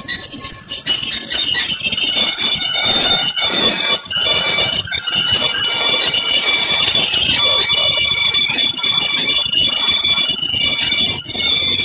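Passenger coaches rolling slowly past as a train arrives at a station, their steel wheels squealing on the rails with high-pitched tones that come and go.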